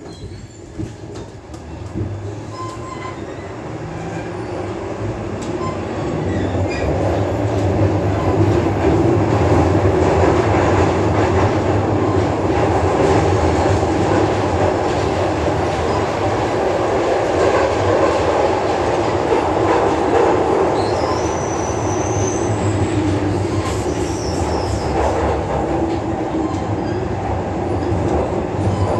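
Glasgow Subway second-generation train pulling away and running through the tunnel, heard from inside the car. The rumble and rattle build up over the first several seconds as it gathers speed, then hold steady, with a short high squeal a little after twenty seconds.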